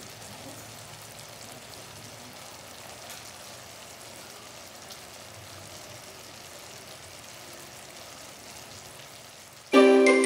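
Thick braising sauce bubbling and sizzling steadily around pork spare ribs in a wok, a faint even crackle. Near the end, loud music starts suddenly.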